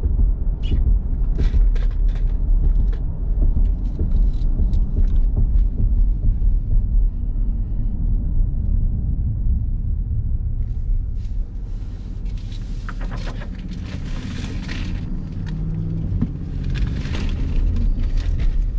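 Steady low road and engine rumble of a car driving, heard from inside the cabin. A scatter of light ticks comes in the first several seconds, and bursts of hiss come in the second half.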